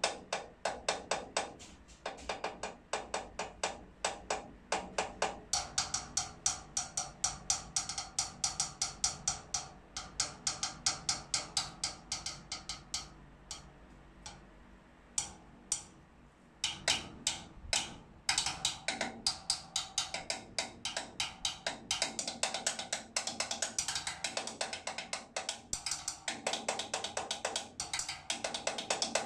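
A chrome-shell snare drum and a tom played with wooden drumsticks in a quick, steady groove. About halfway through, the playing breaks off for a couple of seconds to a few single hits, then starts again.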